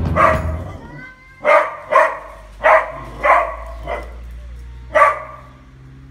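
A dog barking, about six short sharp barks spaced half a second to a second apart.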